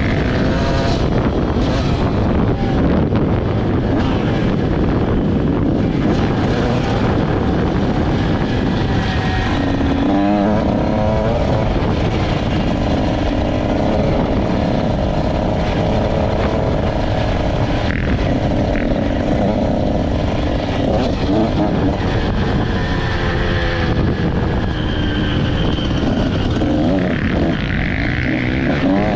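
Two-stroke engine running under way, its pitch rising and falling repeatedly as the throttle is worked, over loud, steady wind and riding noise.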